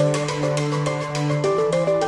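Background music: a melody stepping over held bass notes, with a light beat of about four taps a second.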